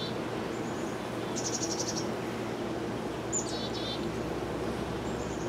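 Steady hum of honeybees from an opened top bar hive. A songbird calls over it with short high trills, about one and a half seconds in and again past three seconds.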